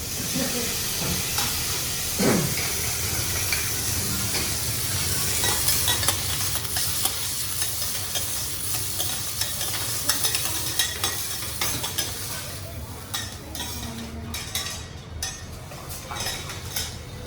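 Food sizzling on a teppanyaki griddle while metal spatulas stir and tap against the hot plate. The sizzle thins over the last few seconds, and there is a brief falling sound about two seconds in.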